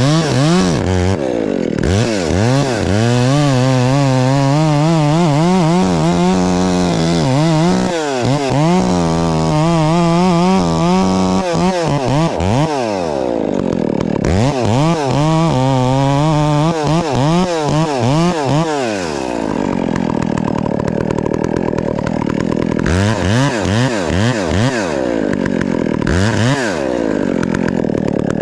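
Husqvarna 372XPW two-stroke chainsaw cutting at full throttle, its pitch wavering under load, in two long runs. After the second run the engine drops to a lower speed, with two short throttle blips near the end.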